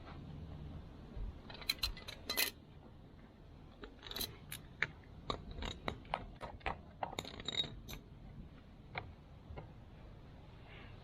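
Light metallic clicks and clinks, a dozen or so scattered irregularly over several seconds, as small metal pieces are handled.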